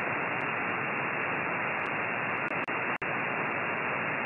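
Shortwave receiver on the 20-metre band in upper sideband, hissing with steady band static between transmissions, with nothing above the voice range. The hiss drops out briefly twice, about two and a half and three seconds in.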